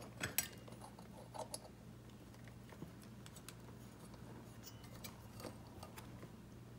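Faint, scattered clicks and light taps of small ATV parts being handled and pushed into place, over a low steady hum.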